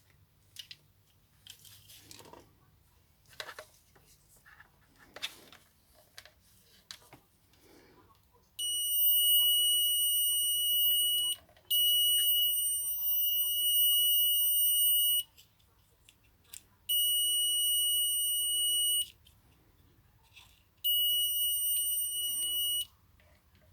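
Light clicks and handling noises, then an electronic beeper sounding a steady high tone four times, each beep lasting two to four seconds.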